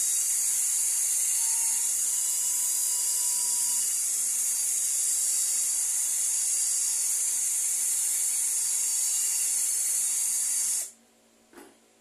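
Cordless drill running at a steady speed, spinning an electric fan's rotor shaft while fine wet sandpaper and penetrating oil polish it clean, with a steady high hiss. It stops suddenly about eleven seconds in.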